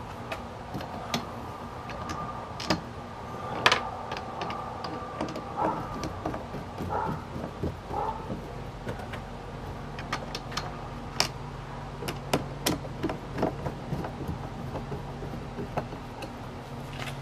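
Hand screwdriver driving short screws into the plastic mounts of a kayak stabilizer's center bar: scattered, irregular clicks and light knocks over a steady background hum.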